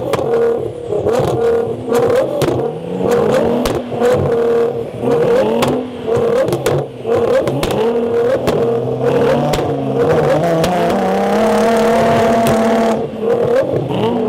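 Nissan GT-R engine under hard throttle, its pitch repeatedly climbing and dropping about once a second, with sharp cracks in between. About ten seconds in it holds a steady high note for a few seconds before climbing and dropping again.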